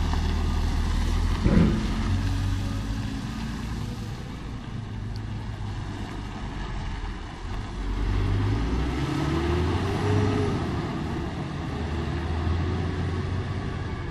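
Heavy diesel engines of a wheel loader and a tipper semi-truck running, with one sharp bang about a second and a half in. Around ten seconds in, an engine revs up briefly, its pitch rising and then falling.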